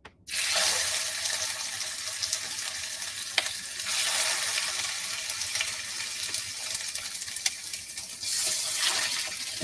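Chicken patties sizzling in smoking-hot olive oil in a frying pan, a steady hiss that starts suddenly as the first patty goes in. There is a sharp click about three and a half seconds in.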